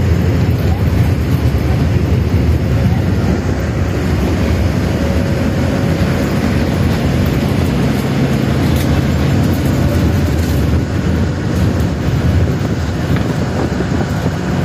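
A steady, loud, low rumble of a running vehicle, with no break or change in level.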